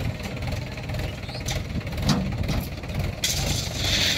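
Tractor diesel engine running with a steady, knocking beat. From about three seconds in, a rushing hiss joins it as the gravel load slides off the tipping trolley.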